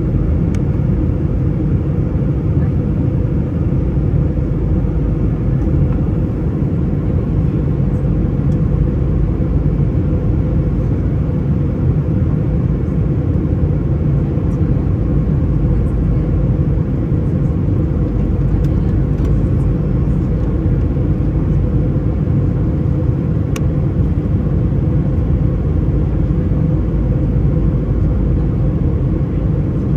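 Steady low drone of a jet airliner's turbofan engines and rushing airflow, heard from inside the passenger cabin. A single faint click comes late on.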